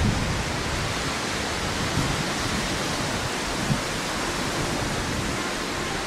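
Steady rushing background noise with no distinct event standing out.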